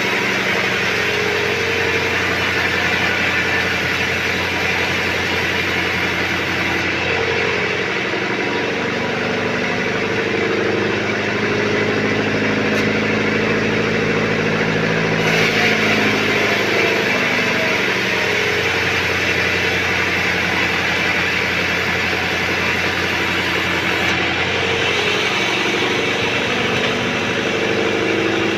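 Sawmill band saw running with its drive engine, a steady machine drone whose pitch shifts a few times.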